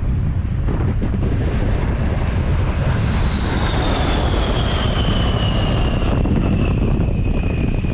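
Jet aircraft flying past: a heavy, steady rumble with a high engine whine that falls steadily in pitch as it passes.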